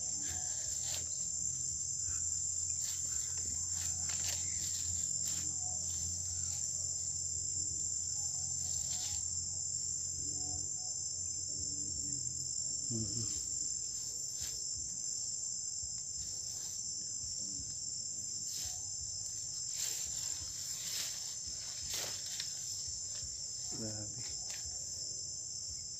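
Night-time insect chorus, a steady high-pitched trill with no break, with scattered rustles and footsteps through leafy undergrowth.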